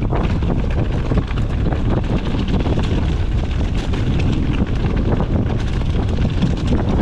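Heavy wind buffeting the microphone, with rapid irregular clicks and rattles from a mountain bike riding over rough trail.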